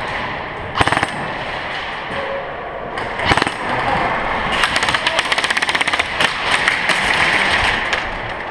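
Airsoft electric guns firing: a short burst about a second in and another just past three seconds, then a long stretch of rapid full-auto fire from about halfway through.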